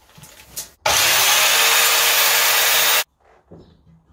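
A power saw cutting through a strip of timber for about two seconds, starting and stopping abruptly, with faint knocks of the wood being handled before and after.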